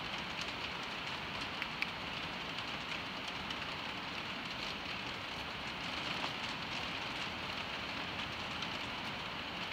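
Steady rain on the roof of a building: an even hiss with many faint, light ticks.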